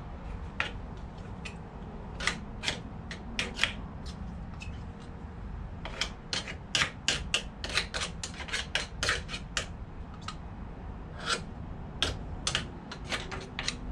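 Steel chisel scraping grease out of a tube and smearing it onto a hedge trimmer's gear head and blades: quick, irregular scrapes and metal ticks, coming thickest in a flurry near the middle.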